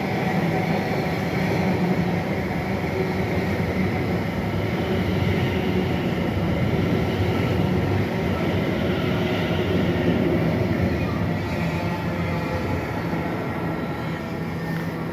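Train running at the platform: a steady mechanical rumble with a constant low engine hum.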